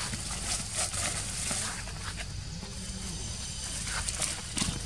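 Young macaques scampering and scuffling through leafy undergrowth: irregular rustling and crackling of leaves and twigs under their feet and bodies, over a steady low rumble.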